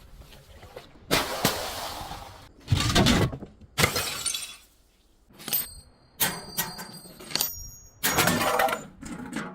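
Glass bottles shattering in a run of about five loud crashes, with broken glass ringing and clinking between them.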